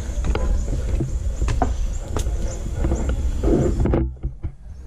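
Handling noise on a hand-held camera's microphone while it is carried on foot: a steady low rumble with scattered knocks and rustles, which drops off sharply about four seconds in.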